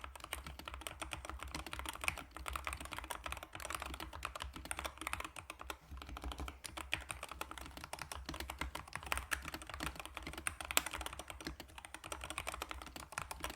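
Fast, continuous typing on a Corsair K70 MAX mechanical keyboard with fully lubricated magnetic switches: a dense, irregular run of keystroke clacks.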